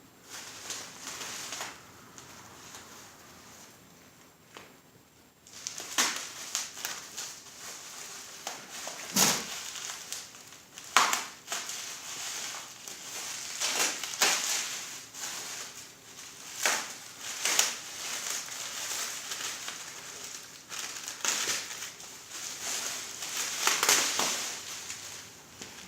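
Packaging being torn open and crumpled by hand to unwrap a motorcycle seat: irregular rustling with a few sharper cracks, quieter for the first five seconds or so.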